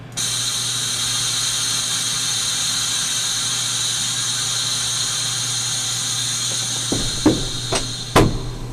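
Steady hiss over a low hum, cutting in just after the start, with about four sharp clicks and knocks in the last two seconds.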